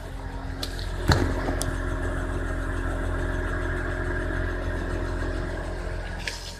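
Subaru Outback BP9 on the move, with the steady drone of a worn wheel hub bearing under the road noise. A few brief clicks sound about a second in and again near the end.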